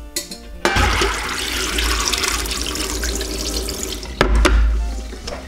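Tap water running steadily into a steel pot of soaked, hulled mung beans as they are rinsed, starting just under a second in. There is a sharp knock about four seconds in, and then the rushing grows louder for a moment.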